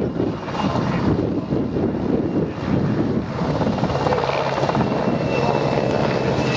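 PZL W-3A Sokol search-and-rescue helicopter's twin turboshaft engines and main rotor running at lift-off power as it leaves the ground and climbs away: fast rotor beating under a steady turbine whine that grows clearer about halfway through.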